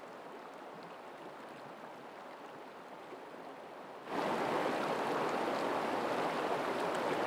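Steady rush of a mountain creek over rocks: faint for the first four seconds, then suddenly much louder and closer.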